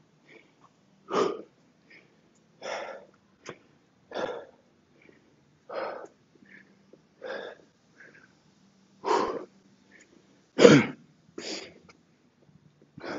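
A man breathing hard to recover after heavy kettlebell swings: a short, forceful exhale about every second and a half, the loudest about ten and a half seconds in.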